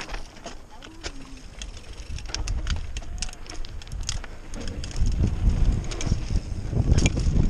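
Mountain bike riding over rough trail, its chain and frame rattling in quick clicks, with wind buffeting the microphone. The low rumble grows louder about five seconds in.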